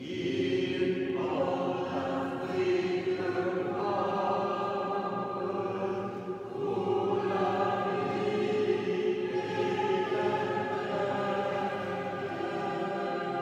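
Choir singing a slow liturgical chant, with long held notes that change pitch every few seconds.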